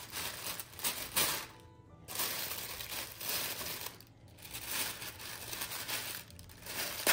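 Crinkling and rustling of a plastic roasting sleeve, with light clinks, over background music.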